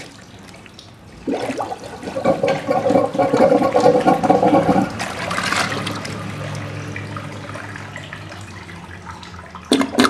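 1963 Briggs toilet flushing: water starts rushing through the bowl about a second in, with a humming note in it, loudest a few seconds later, then easing into a quieter steady run of water. The bowl is draining because the clog has cleared.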